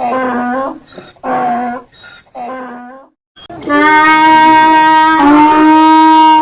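Donkey braying: three short honking pulses, each sliding slightly down in pitch. Then comes a louder, long, steady horn-like note that shifts pitch once partway through.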